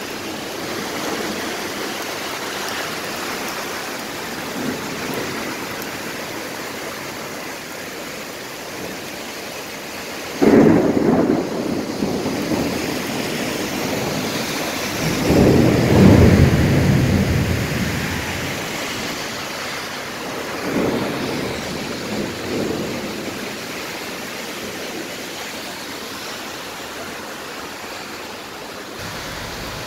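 Heavy rain falling steadily, with thunder: a sudden crack about a third of the way in, a louder rolling rumble a few seconds later, and a fainter rumble after that.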